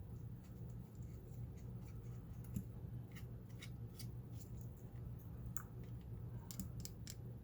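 Faint, scattered light clicks and taps of a lock and small metal tools being handled, over a steady low hum.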